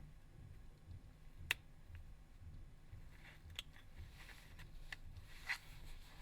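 Faint clicks and light scraping of a pry tool working the plastic retaining clips of a Microsoft Lumia 430's engine board, with one sharp click about one and a half seconds in and a few more clicks near the end.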